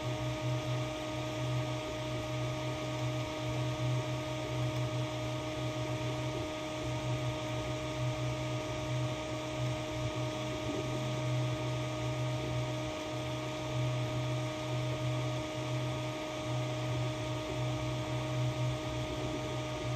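Elegoo Neptune 2S 3D printer running a print: a steady hum of its cooling fans with a low motor drone that pulses and briefly drops out as the print head and bed move.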